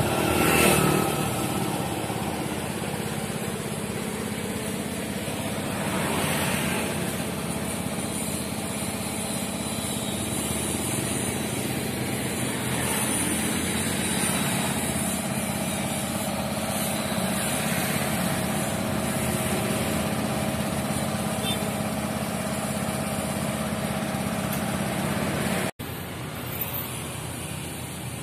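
Steady engine drone with street traffic, and vehicles passing close by about half a second in and again around six seconds. The sound cuts out abruptly near the end and returns quieter.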